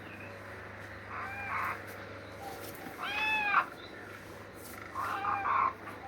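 A kitten meowing three times, in short calls that rise and fall in pitch; the second is the loudest.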